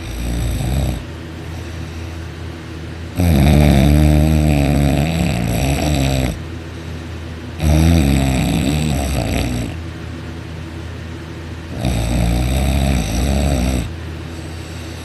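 A man snoring loudly while asleep, his soft palate vibrating. There are three long snores about four seconds apart, each two to three seconds long, plus the tail of one at the very start.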